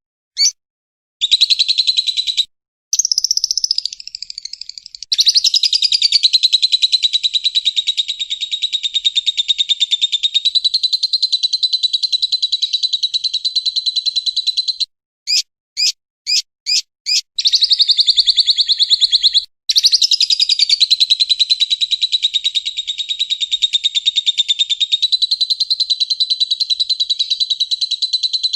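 Lovebird singing a long, rapid chattering trill in several runs, the longest about ten seconds. A few short separate chirps break it about halfway through.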